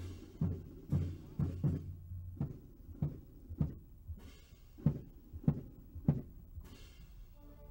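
Deep drum beats from a ceremonial military band: single low thuds, one or two a second, settling into an even slow beat. Just before the end the band comes in with held notes.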